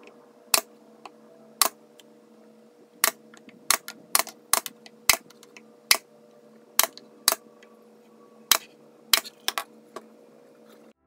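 Pneumatic pin nailer firing a series of pins into the oak clock case, about twenty sharp shots at irregular spacing, several close together in places. A faint steady hum runs underneath.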